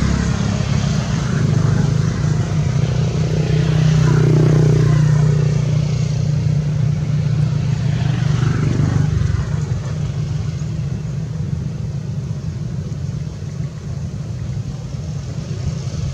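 A motor vehicle's engine running steadily with a low hum that swells slightly about four seconds in, then eases.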